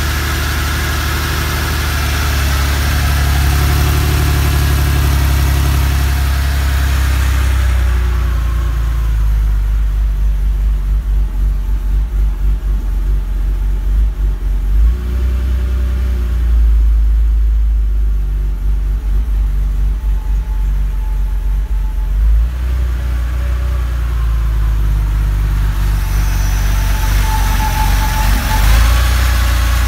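Porsche 911SC's air-cooled 3.0-litre flat-six idling steadily at about 1,000 rpm during its cold-start warm-up. The sound turns duller through the middle stretch, heard from inside the cabin, and is brighter again near the end, heard at the open engine bay.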